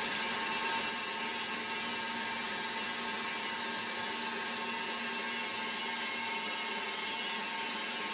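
Small workshop machine tool running steadily: an even whir with several held tones and no change in speed.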